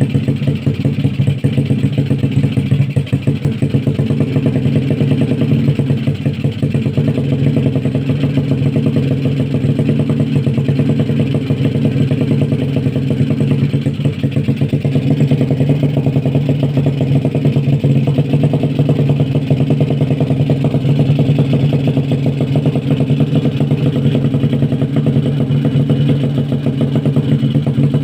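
Bored-up Honda Vario 110 scooter's single-cylinder four-stroke engine running steadily at an even speed through its exhaust, with a fast, even pulsing beat.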